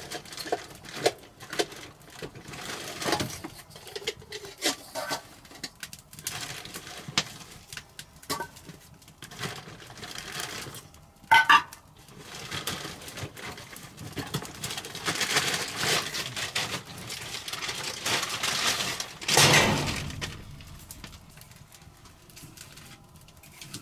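Rummaging in a backpack and setting camp cookware down on a table: rustling and scattered clicks and clinks, with a ringing metal clink about eleven seconds in and a louder rustle near the twenty-second mark.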